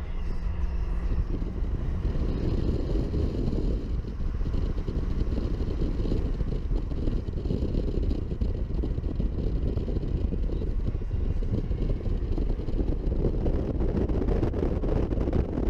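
Steady road and wind noise from inside a car moving at speed, with air rushing and buffeting past the microphone at the side window.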